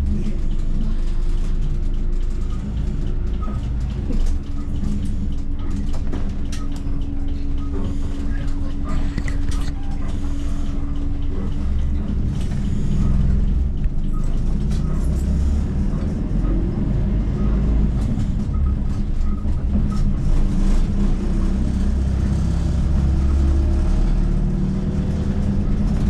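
Diesel bus engine and road noise heard from inside the cabin as the bus drives on after pulling away: a steady low rumble with occasional light clicks and rattles.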